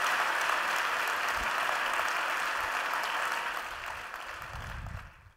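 A large audience applauding. The clapping thins out over the last couple of seconds and then cuts off.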